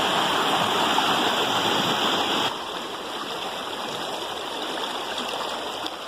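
Shallow river rushing over and between rocks: a steady noise of white water. About two and a half seconds in it drops suddenly to a softer flow.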